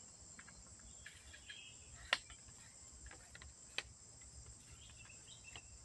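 Steady high-pitched drone of insects such as crickets, with faint high chirps. Two sharp clicks stand out, about two seconds in and again nearly four seconds in.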